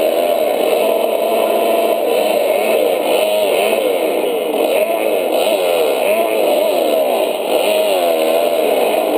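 Suzuki RM-Z250 four-stroke single-cylinder motocross engine at race pace, its pitch rising and falling over and over as the throttle is opened and closed and the gears change.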